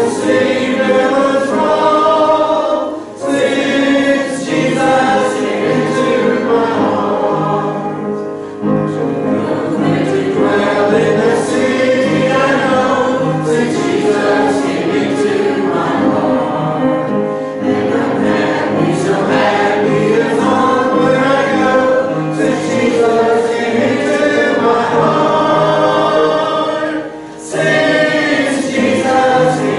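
Church congregation singing a hymn together, with brief breaks between lines.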